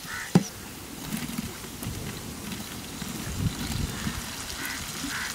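Sliced onions frying in hot oil and ghee in a large aluminium pot, a low steady sizzle with light crackle. There is one sharp metallic knock about half a second in.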